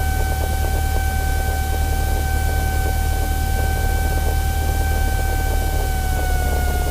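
Steady drone of a light single-engine airplane's piston engine and propeller heard inside the cockpit while taxiing, a strong low hum with a steady whine that drops slightly in pitch about six seconds in.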